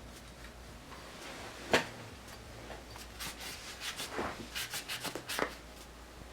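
Cloth rubbing and scraping over a G2C pistol's slide as firing residue is wiped out, with handling noises: one sharp click about two seconds in and a run of short scrapes and small knocks in the second half.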